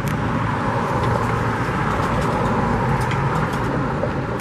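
Road traffic noise, a steady wash of passing vehicles that swells slightly through the middle and eases toward the end.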